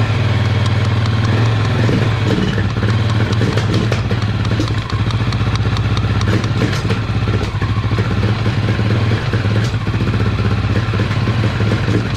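A Honda XR650L's single-cylinder four-stroke engine idling steadily without revving. Light taps sound now and then as a screwdriver knocks on the carburettor body, in case the throttle slide is stuck.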